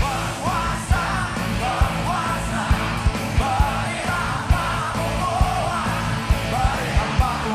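Live rock band playing loudly, with a steady drum-kit beat under a male lead vocal singing in strained, shouted phrases.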